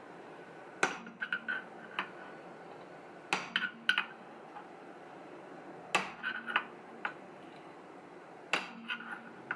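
Hammer striking a steel centre punch against the metal of a Lambretta TV175 engine casing's engine-mount bore: four sharp strikes about two and a half seconds apart, each followed by a few lighter metallic taps. Each blow raises a small crater of metal inside the bore so that a loose engine mount becomes a tight knock-in fit again.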